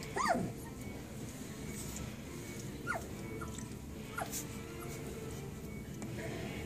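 Very young puppies crying in the whelping box: one loud cry falling in pitch just after the start, then four short falling squeaks in the middle.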